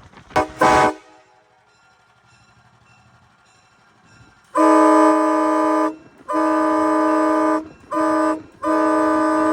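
Nathan Airchime K5LA five-chime train horn, a 1994 Graham-White rebuild, sounding a loud multi-note chord. Two brief toots come first. After a pause of a few seconds it blows long, long, short and long, the pattern of a railroad grade-crossing signal.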